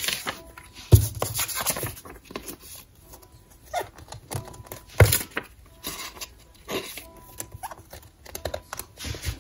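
Clear plastic binder sleeves crinkling and rustling as paper cards are slid into their pockets, with scattered small clicks and a sharper knock about a second in and again about five seconds in.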